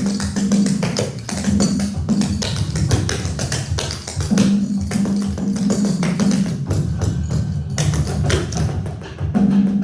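Percussive music: quick, uneven taps and drum hits, with a low held note that comes and goes.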